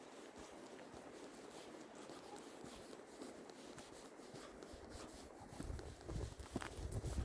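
Footsteps of a walker on a snowy forest path: faint at first, then from about five and a half seconds in, heavier low thumps of steps, with small crunching clicks between them.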